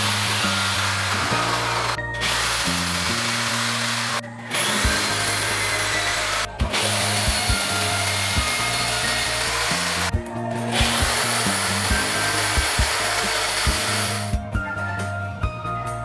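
Corded electric drill boring into a wall, running in five long bursts with short pauses between them, stopping about two seconds before the end.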